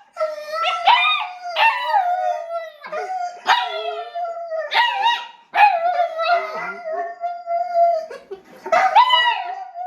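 A dog howling and crying: a run of long, wavering howls one after another, each starting sharply and bending in pitch.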